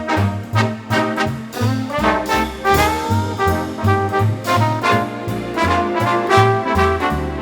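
Instrumental swing-style jazz. Brass horns carry the melody, with a short sliding phrase about halfway through, over a stepping bass line.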